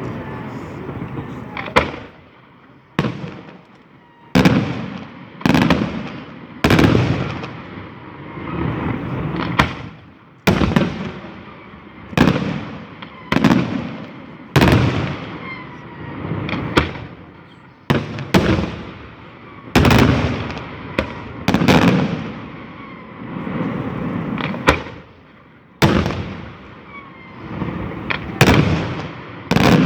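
Aerial fireworks shells bursting in quick succession: about twenty sharp bangs, roughly one every second or so, each trailing off into a rumbling echo.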